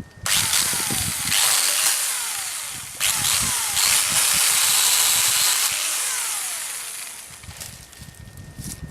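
Cheap telescopic pole chainsaw running in bursts: it starts just after the beginning, surges again about three seconds in, then winds down and fades out over the last few seconds. A falling whine repeats through it.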